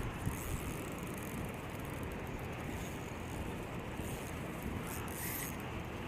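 Steady rushing noise of river current in the riffles and wind on the microphone, with a few brief, faint scratchy sounds.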